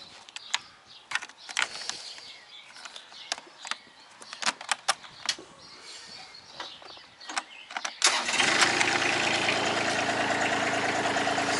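Clicks and knocks of a small tractor's controls being worked. About eight seconds in, its engine starts abruptly and runs steadily.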